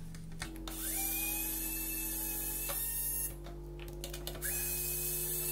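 Pen-style electric precision screwdriver backing screws out of a 3D-printed plastic case, twice. Each run is a small motor's whine that rises, then holds a steady pitch: about two and a half seconds the first time, about a second and a half near the end.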